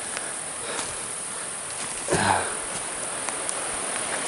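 Steady high-pitched insect-like buzz over an even hiss of forest ambience, with one short voice sound about two seconds in.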